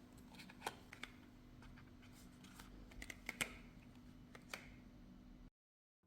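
Faint, scattered clicks and light taps, a dozen or so at uneven intervals over a low steady hum, cutting off to dead silence near the end.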